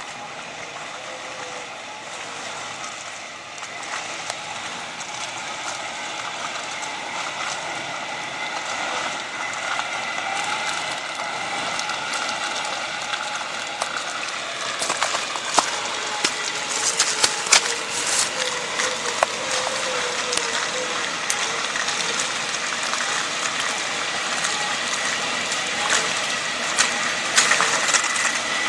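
Suzuki Samurai 4x4 running slowly on a steep rocky descent, growing louder as it approaches. From about halfway through come frequent sharp clicks and knocks as it works over the ruts and loose stones.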